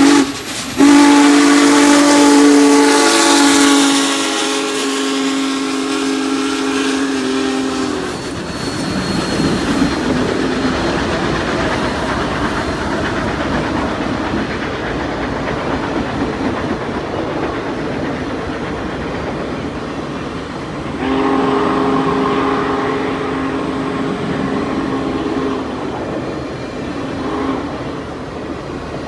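Steam locomotive's chime whistle sounding a long blast of several notes at once for about seven seconds. Passenger cars then rumble and clatter past on the rails. About twenty seconds in, the whistle sounds again for several seconds.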